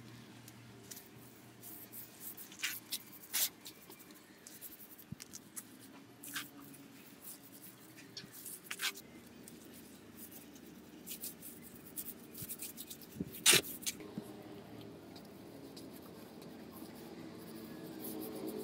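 Small paint roller rubbing over a cement-rendered wall, with scattered light clicks and knocks; the sharpest knock comes about three-quarters of the way through.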